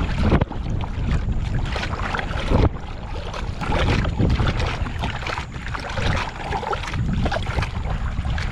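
Wind buffeting the microphone over water splashing around a kayak, with irregular knocks and handling noises on the hull.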